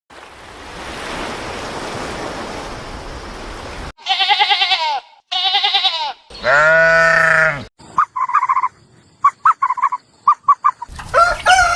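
A run of separate animal sounds: about four seconds of steady rushing noise, then two quavering bleats and a longer, steadier bleat, then a string of short high chirps. A rooster's crow begins near the end.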